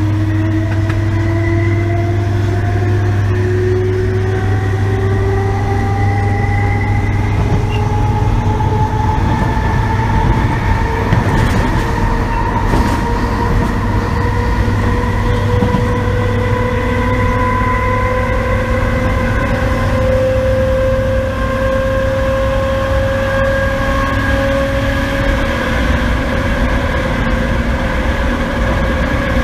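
Inside a carriage of an MTR East Rail Line MLR electric train (Metro-Cammell EMU), with a strong traction-motor whine rising slowly in pitch as the train gathers speed, then holding steady past the middle as it settles to running speed. A constant low hum runs underneath, with a few brief clicks about halfway through.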